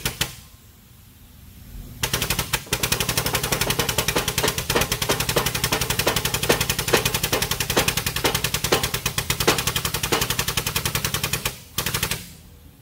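Air-over-hydraulic bottle jack's air pump chattering in rapid, even pulses as the shop press drives a wheel bearing into its knuckle. It runs for several seconds, stops, then gives a short final burst near the end.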